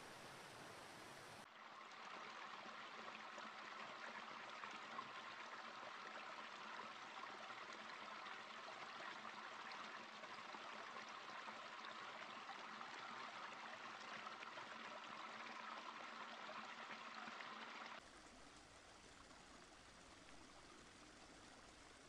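Water falling over small cascades in forest streams, a steady rush without strokes or rhythm. The sound changes abruptly about a second and a half in and again near the end, where it drops quieter.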